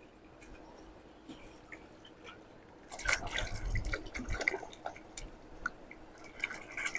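Toy vehicles handled in water during washing: small drips, splashes and plastic knocks in a spell about three seconds in, and again near the end.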